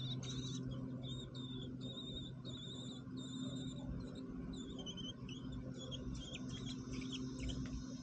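American robin nestlings begging with thin, high chirps and short warbled calls, coming faster in the second half, over a steady low hum.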